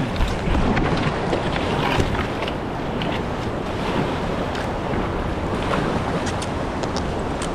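Flowing river water rushing steadily around a kayak, with wind buffeting the microphone and scattered small splashes.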